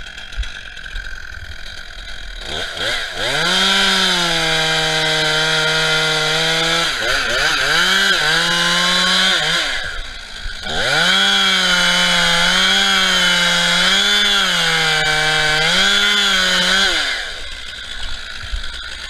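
Two-stroke chainsaw, a Stihl MS441, revved to full throttle and making a felling cut through a poplar trunk in two long passes. Its pitch sags slightly and recovers under the load of the cut, and it drops back toward idle for a moment about ten seconds in and again near the end.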